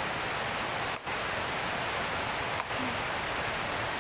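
Steady rushing of river water flowing, dropping out briefly twice.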